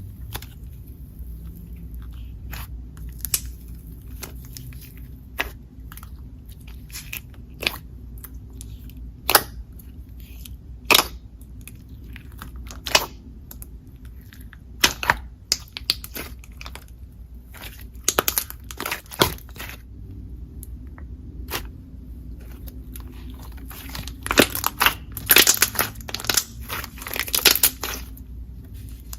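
Slime being squeezed and poked by hand close to the microphone: scattered sharp clicks and crackly pops, coming in quicker clusters about two-thirds of the way in and near the end.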